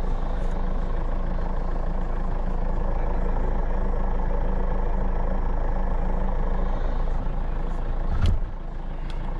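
Land Rover Freelander driving through deep snow, its engine and running gear making a steady drone. About eight seconds in there is a single thump, after which the noise is a little quieter.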